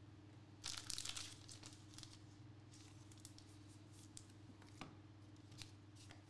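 Faint handling of trading cards on a desk: a short crinkly rustle about a second in, then a few light ticks as cards are slid and set down, over a steady electrical hum.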